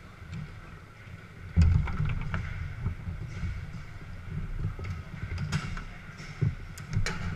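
Foosball play on a Garlando table: knocks and clacks of the ball, plastic figures and steel rods, with the loudest hard knock about a second and a half in and several sharper clicks near the end, over a steady hall murmur.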